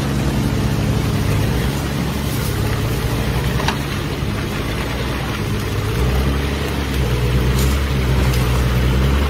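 Engine of a log-laden 4x4 pickup truck running under load as it drives through mud, a steady low drone that grows louder about six seconds in.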